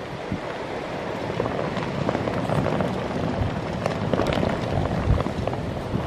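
Storm wind rushing in gusts and buffeting the microphone, with low thumps as the stronger gusts hit.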